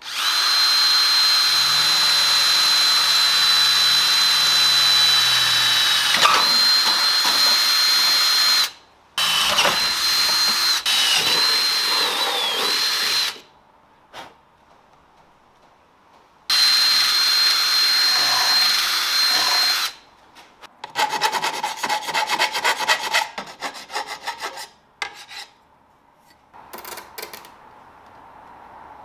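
Power drill boring through a circular saw's metal base plate: a loud, steady high motor whine held for about eight seconds, then two shorter runs after brief stops. Near the end come a few seconds of rapid ratcheting rattle and scattered clicks of handling.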